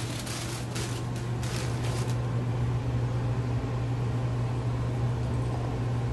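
Tissue paper rustling and crinkling for about the first two seconds as a sneaker is unwrapped and lifted out of its shoebox, over a steady low hum.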